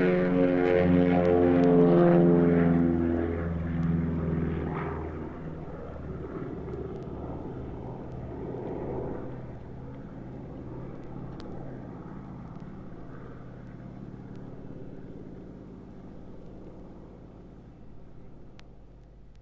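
Propeller aircraft engines droning with a pulsing beat, loud at first and fading steadily as the plane flies away, from a sound-effects record.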